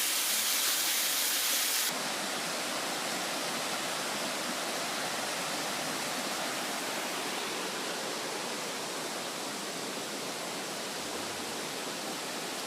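Steady rush of water from a mountain creek flowing over rocks. About two seconds in, the hiss turns abruptly duller and a little quieter, then holds steady.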